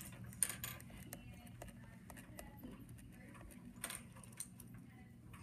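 Green pen writing on lined notebook paper: faint scratching and small ticks, with two sharper ticks about half a second in and near four seconds, over a faint steady hum.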